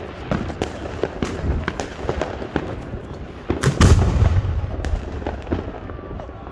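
A 6-inch aerial firework shell is launched from its mortar tube with a loud, deep thump nearly four seconds in. Scattered sharp pops and crackles come before and after it.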